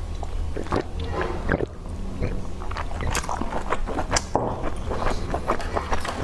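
Close-miked chewing and wet mouth sounds of someone eating grilled sausage skewers, with many short irregular clicks and smacks. A steady low hum runs underneath.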